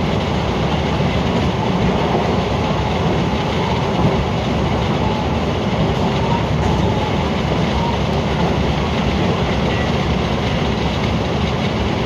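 Running noise of a JR West electric commuter train heard inside the passenger cabin: a steady, even din of wheels on rail and traction equipment at speed.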